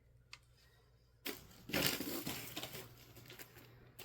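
Packaging being handled and crinkling: a single small tick, then a burst of crackling about a second in, louder briefly, tapering off into faint crinkles.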